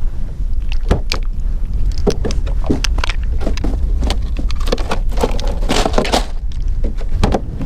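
Irregular knocks, clunks and rattles of hard plastic as a redfish is put into a cooler aboard a kayak, with wind rumbling on the microphone underneath.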